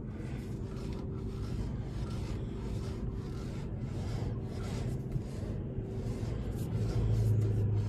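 Rough rubbing and scraping sounds, about two a second, as a Tesla Cybertruck's steer-by-wire yoke is turned back and forth with the truck switched on. A steady low hum runs underneath and grows louder near the end.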